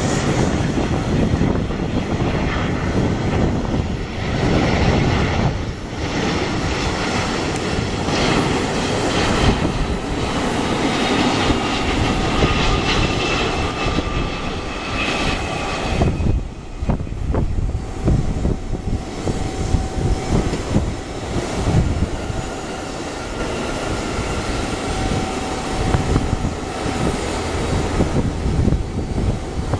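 Boeing 757-200 twin jet engines: a steady, loud jet rumble with a faint whine as the airliner comes in on approach and lands, carrying on through the landing roll.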